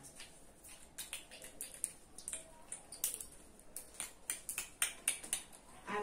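Plastic fidget toys being handled at a table: a scatter of small, irregular clicks and taps as they are squeezed, picked up and set down.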